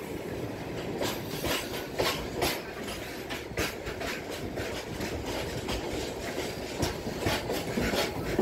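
Train wheels clattering over rail joints, with a steady rumble and sharp clacks about two a second, heard from the open doorway of a moving train running beside a rake of open freight wagons.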